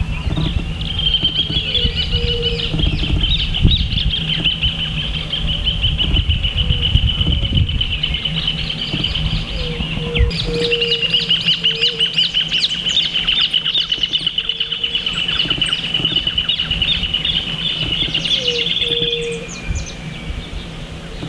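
Birds chirping in a dense, continuous chorus of rapid high calls, with a short break about ten seconds in.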